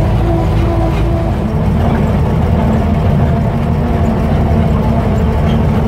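The 1928 Lombard dump truck's engine running under way with a dense, steady low rumble, heard from inside the open cab. A faint whine fades out about a second in, as the rumble grows fuller.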